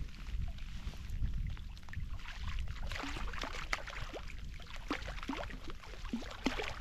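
Water lapping and dripping around a small boat with rain falling on the water: many small patters and splashes over a low rumble.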